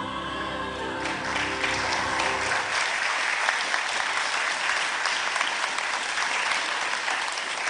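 A church congregation applauding, the clapping starting about a second in and holding steady, while the last held chord of the dance music fades out about two and a half seconds in.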